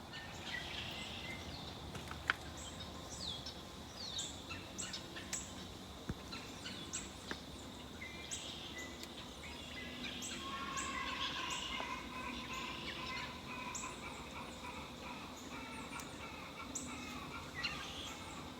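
Birds calling outdoors: many short, high, down-slurred notes scattered throughout, with a longer, lower, wavering call from about ten to thirteen seconds in.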